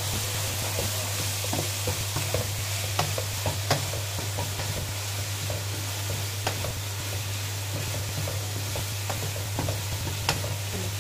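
Chicken, carrots, peas and capsicum sizzling in hot oil in a non-stick wok while a wooden spatula stirs and tosses them, scraping and knocking against the pan in irregular clicks: the freshly added ground spices being fried with the vegetables. A steady low hum runs underneath.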